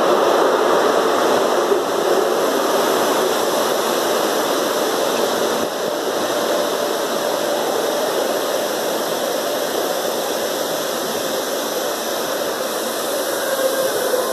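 InterCity 125 high-speed train's Mark 3 coaches rolling past the platform as the train slows to stop, with a steady rushing of wheels on rail and a faint tone that comes and goes.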